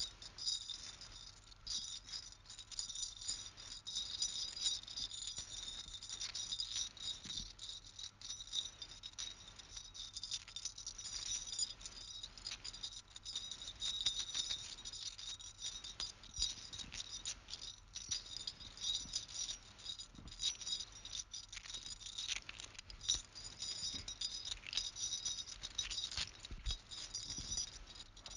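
Continuous dense rattling of small hard objects, a fast unbroken stream of tiny clicks.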